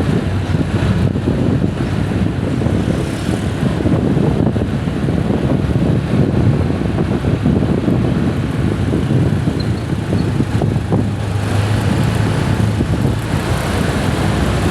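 Wind buffeting a phone's microphone over a steady low rumble, loud and unbroken.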